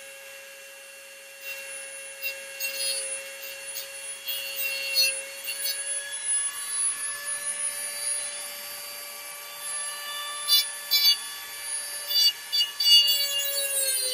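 Corded high-speed rotary tool with a cutting wheel grinding through a rusted toilet-tank nut: a steady high motor whine, with scraping bursts each time the wheel bites the metal. The whine sags in pitch near the end as the wheel bogs under load.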